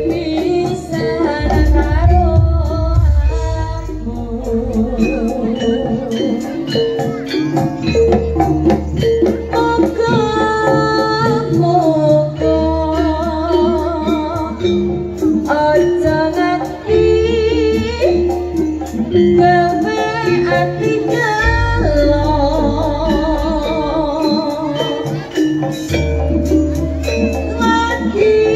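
Live jaranan music: a singer's wavering melody over quick hand-percussion and rattle-like jingles, with long deep bass notes sounding every few seconds.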